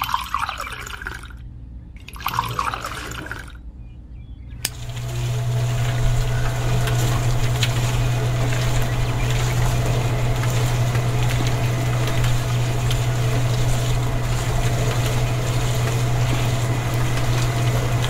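Two short pours of water into a can at the start. About four and a half seconds in, the small electric motor of a toy-scale homemade concrete mixer switches on and runs with a steady low hum, turning the can drum with its wet mix.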